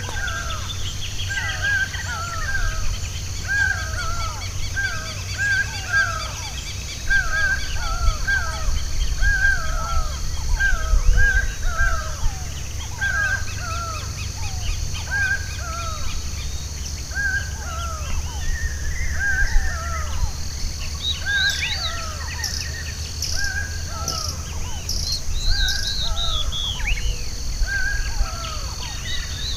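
A chorus of wild birds: short falling calls repeated over and over, with higher chirps and trills joining in over the second half, above a steady low hum.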